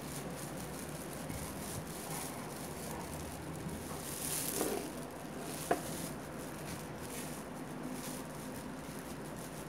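A spatula spreading mayonnaise over cooked pumpkin slices in a ceramic baking dish: soft wet scraping and squishing over a steady background hiss, with one sharp click just past the middle.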